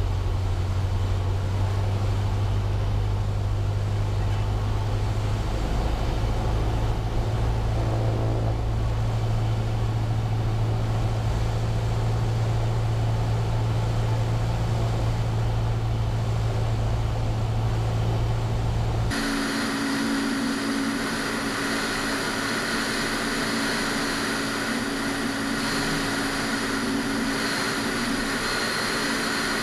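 Cessna 172's engine and propeller droning steadily at approach power, heard as a deep hum inside the cabin. About two-thirds of the way through the sound changes abruptly to a brighter engine and propeller drone with wind rush, heard from outside the aircraft.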